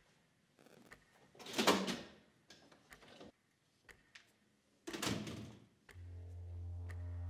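Two heavy door sounds about three seconds apart, over faint scattered ticks. About six seconds in, a low, steady music drone begins.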